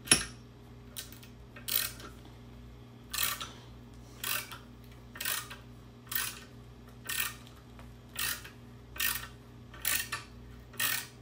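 Ratcheting T-handle tap wrench tapping a bolt hole in an aluminium engine block: a short ratchet rasp about once a second as the handle swings back between cutting strokes, the first one the loudest.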